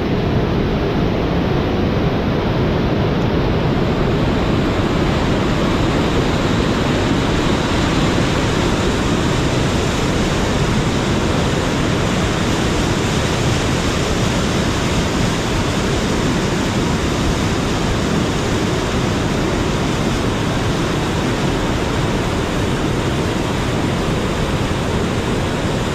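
Loud, steady rushing of floodwater, an unbroken roar of turbulent water that does not change.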